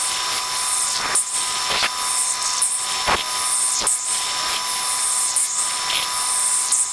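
Metal lathe running during machining, with a steady high whine and hiss and a sharp tick or clack about once a second.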